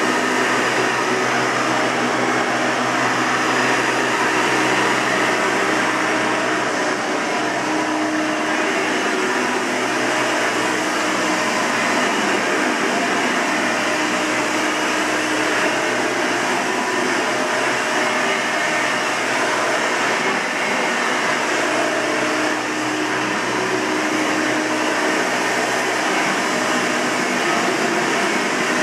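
Hoover Elite 200 bagged upright vacuum cleaner running steadily, its motor whine and rushing airflow holding an even level.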